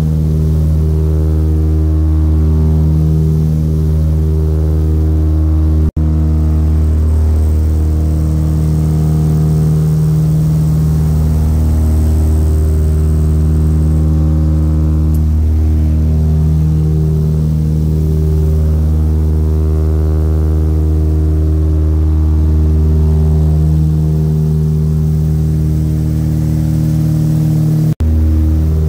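Britten-Norman Islander's engines and propellers heard inside the cabin in flight: a steady low drone with several even hum tones. The sound breaks off for an instant twice, about six seconds in and near the end.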